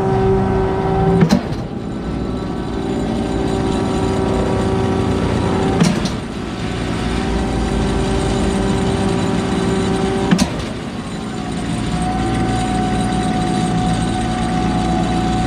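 Truck-mounted concrete pump running on test with a steady pitched hum from its engine and hydraulics, broken by a sharp clunk three times, about every four and a half seconds, as the pump shifts stroke. The cycling is even, with no stutter, after a new proximity switch was fitted.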